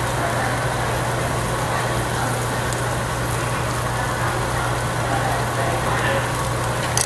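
Steady hum and hiss of a tabletop barbecue grill and its overhead ventilation hood, with meat cooking on the grill.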